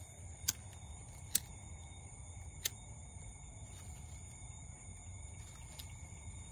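A hand-held lighter being struck to light crumpled paper, with three sharp clicks in the first three seconds and a fainter one later.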